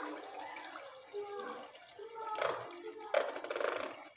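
Green chicken curry bubbling at a low simmer in a pot as thick cream is squeezed in from a packet. Two short rustles come about halfway through and again near the end.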